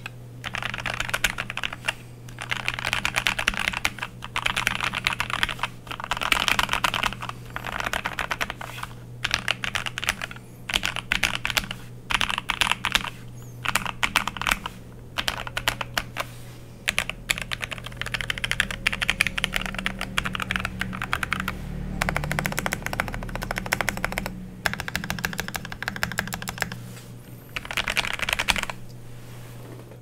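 Typing on a modded Keychron K4 V2 mechanical keyboard: stock Gateron Red linear switches lubed with Krytox 205 and 105, and tuned, lubed stock stabilizers, with a tape mod and PE foam mod. The keystrokes come as rapid clacks in bursts of a second or two with short pauses between, and stop just before the end.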